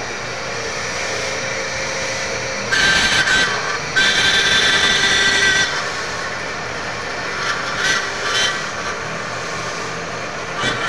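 Machine shop noise: machinery running steadily, with a louder high-pitched whine for about a second and then for about a second and a half near the middle.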